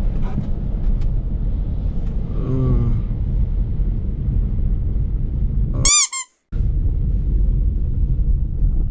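BMW F30 335i's N55 inline-six and tyres on snow make a steady low rumble, heard from inside the car. There is a short squeak that falls in pitch about two and a half seconds in, and a sharp, high squeak about six seconds in, after which the sound cuts out for a moment.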